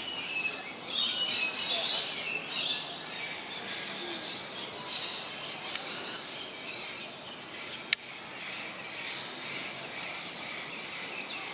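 Many small birds chirping at once, with one sharp click about eight seconds in.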